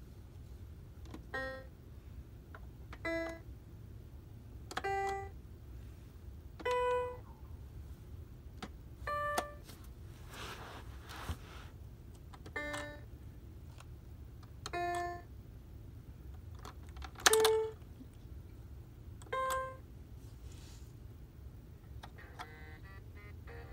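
Fisher-Price Baby Smartronic Animal Quartet electronic toy piano playing single short electronic notes as its keys and buttons are pressed one at a time, each press a small plastic click followed by a beep-like note. There are about nine notes, one every two seconds or so, each at a different pitch. Near the end a busier run of electronic notes begins.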